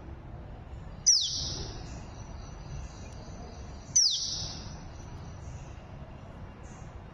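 A bird calling twice, about three seconds apart. Each call is a sharp falling whistle that runs straight into a short, harsh hiss, over a low steady rumble.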